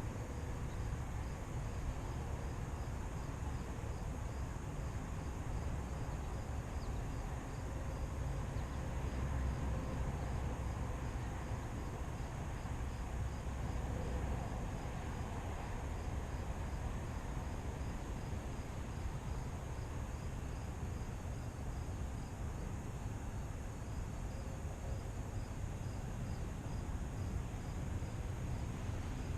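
Outdoor ambience: a steady low rumble under a cricket chirping evenly, about two chirps a second, with a thin steady high insect drone.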